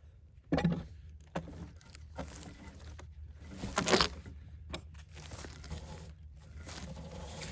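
Heavy wooden knocks, the loudest near the middle, and long creaking, splintering stretches as a cedar log is worked apart along its split.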